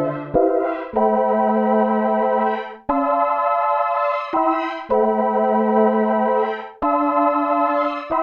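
Korg Polysix analog synthesizer playing a string patch: sustained chords, a new chord every second or two, each change starting with a brief click.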